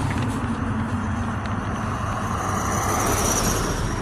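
Motor vehicle road noise: a steady low rumble, with a hiss that swells about two to three seconds in.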